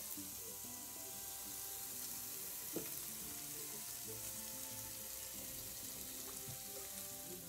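Strips of pork belly sizzling steadily on an electric tabletop grill.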